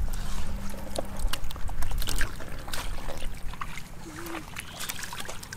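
Splashing and sloshing of shallow muddy water as a hand net is scooped through it and emptied into a tub, with irregular wet slaps and trickles.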